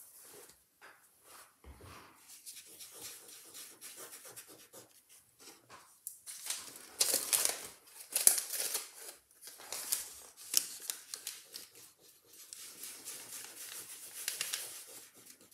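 A small fabric scrim pad rubbed and dabbed briskly over an inked mount-board collagraph plate, making an irregular run of scratchy rubbing strokes that are loudest in the middle.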